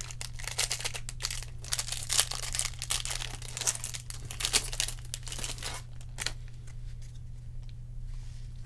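Foil trading-card pack being torn open and crinkled in the hands. The dense crackling lasts about six seconds, then dies down to quieter handling of the cards.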